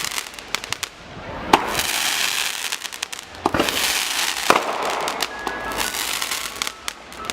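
Fireworks going off: a string of sharp bangs and pops with crackling between them, a few louder booms standing out through the middle.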